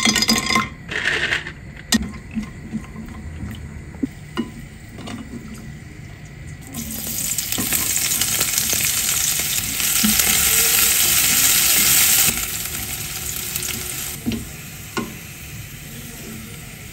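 Cashews dropped into hot oil sizzle briefly, with a few light clicks. About seven seconds in, sliced onions tipped into the oil set off a loud, steady frying sizzle, which eases off after a few seconds.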